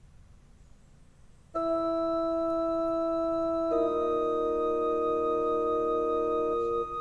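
Yamaha PSR-E263 portable keyboard sounding two long held chords, starting about a second and a half in, with the chord changing about two seconds later. The notes hold steady without fading, then stop near the end.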